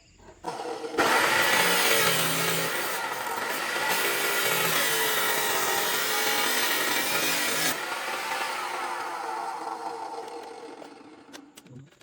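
Allefix 14-inch abrasive cut-off saw starting up, then its disc grinding through metal for about seven seconds. The grinding stops abruptly and the motor winds down as the disc spins to a stop.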